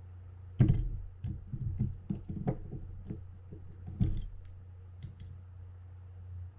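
Clicks and light knocks of small metal parts as the opened Shimano Curado DC baitcasting reel's mechanism is handled and worked apart, with a short metallic ping about five seconds in, over a steady low hum.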